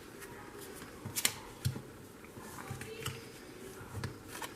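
Yu-Gi-Oh! trading cards being handled and flipped over: soft rustling with several sharp card flicks and taps, the loudest a little over a second in.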